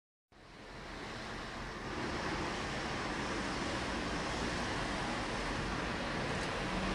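A steady rushing noise fades in after a brief silence and then holds level.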